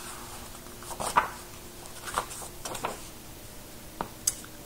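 Soft rustles and light taps of a picture book being handled and turned toward the camera, a few short ones spread through the pause, over a faint steady hum.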